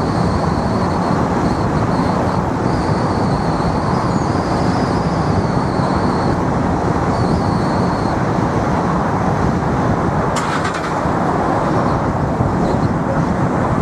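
Steady road and engine noise of a car being driven along a street, with a faint high whine through the first half or so and a brief click about ten seconds in.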